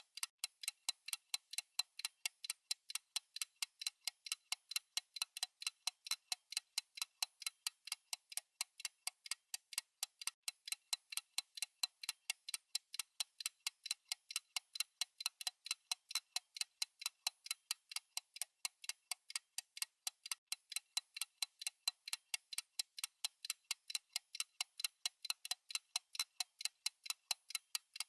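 Fast, even clock ticking from a countdown timer's tick-tock sound, about four sharp clicks a second with no low end.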